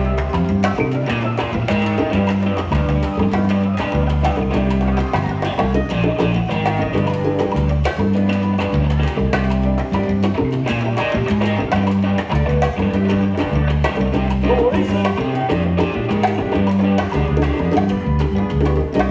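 Latin dance music in a salsa style, with a prominent bass line moving in short steps under dense rhythmic accompaniment.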